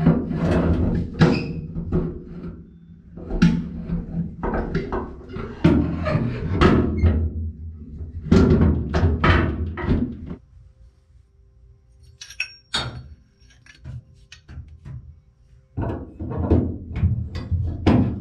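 Irregular metal knocks, clunks and scraping as a jet pump is handled and fitted into an aluminium boat hull, in bursts with a quieter stretch in the middle.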